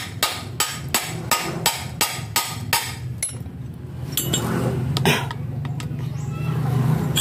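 A hammer striking a steel bar set against a water pump's impeller, about eight sharp metal blows in quick even succession over the first three seconds, to work the rust-seized impeller loose. The blows then stop, leaving a low steady hum with a couple of lighter knocks.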